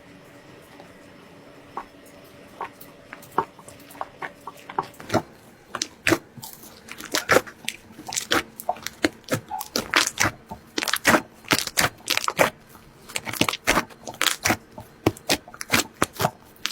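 Slime being pressed and squeezed by hand, giving sharp crackling pops. A few scattered pops at first, then dense crackling several times a second from about five seconds in.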